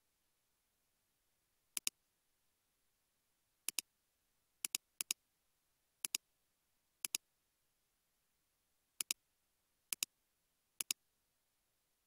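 Computer mouse clicks: nine quick double ticks at irregular intervals over otherwise near-silent room tone.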